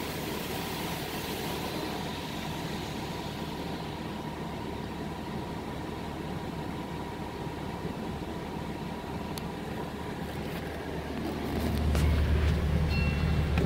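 Pickup truck engine idling, heard from inside the cab in an automatic car wash, with the hiss of water spray on the glass fading over the first few seconds. A louder low rumble comes in near the end.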